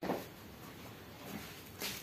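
A soft knock as the sound cuts in, then faint handling noise. Near the end comes a brief rustle of butter paper as hands take hold of the paratha to roll it.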